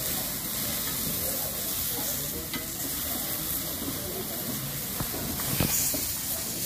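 Tomato slices sizzling in oil on a flat griddle, stirred with a metal spoon. The steady sizzle is broken by a few clicks of the spoon against the plate, two of them close together near the end.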